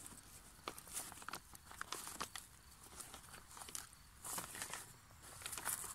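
Faint crinkling of a plastic pond liner and scattered small clicks of pebbles as hands press stones and liner down around a plant at the pond's edge.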